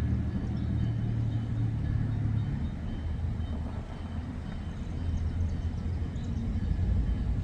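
Freight train rolling past the crossing: a steady low rumble of cars on the rails. A deeper engine drone fades out about two and a half seconds in.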